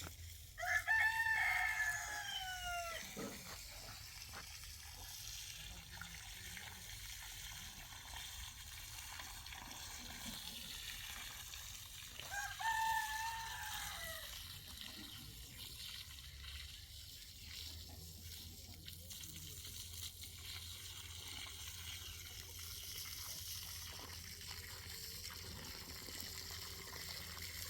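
A rooster crowing twice: one long crow right at the start and a shorter one about twelve seconds in, over a faint steady hiss.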